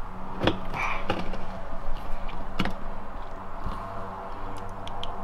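A half-inch drill bit twisted by hand in a hole in a car's plastic bumper cover, shaving the hole wider. Faint scraping, with a few sharp clicks.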